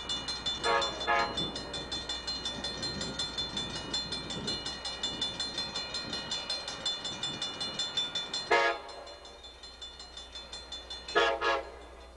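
Horn of an approaching Amtrak San Diegan passenger train, led by a cab car, sounding short sharp blasts for a grade crossing: two about a second in, one about eight and a half seconds in, and two near the end. Underneath, a steady, rapidly pulsing ringing, typical of a grade-crossing bell, runs until about eight and a half seconds in.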